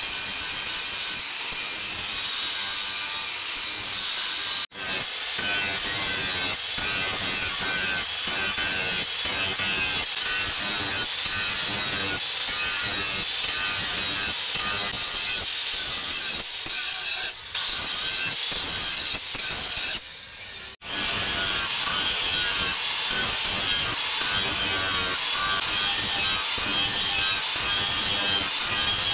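Handheld angle grinder with an abrasive disc grinding the steel of a forged knife blade: a steady, high grinding noise. It drops out briefly about five seconds in and again about two-thirds through.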